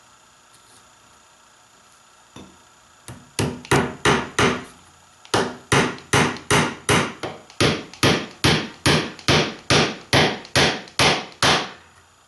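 A hammer driving 10-ounce upholstery tacks through a strap of heavy leather into a wooden chair frame, fastening the spring edge wire. A few quick taps come about three seconds in, then a short pause, then a steady run of strikes at about three a second that stops near the end.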